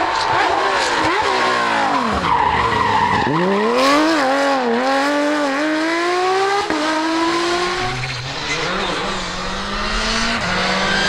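Rally car engines at full effort: a Porsche 911 rally car's flat-six drops sharply in pitch through downshifts, then climbs in steps through the gears as it accelerates. After an abrupt break, a Škoda Fabia R5 rally car's engine rises through the gears.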